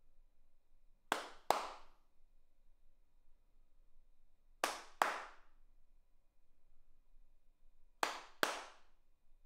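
Hand claps with cupped palms, in pairs: two claps less than half a second apart, three pairs about three and a half seconds apart. Each clap rings out with a short echo.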